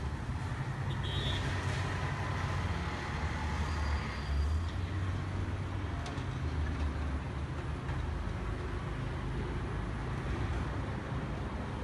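Busy street traffic of auto-rickshaws, minibuses and cars: a steady mix of engine noise and tyres with a low rumble. There are a few brief high-pitched tones about a second in and again around four seconds in.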